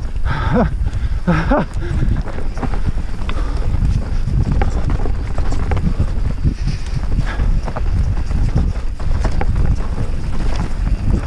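Mountain bike riding fast down a rough trail: a steady rumble of tyres on the ground with rapid clattering and rattling as the bike takes the bumps.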